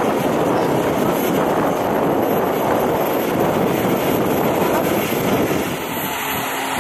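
Loud, steady roar of a mobile crane's engine running under load as it hoists a concrete floor slab, easing off slightly near the end.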